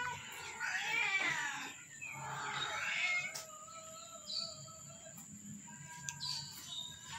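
Cats meowing: two long, drawn-out meows in the first three seconds, then fainter calls.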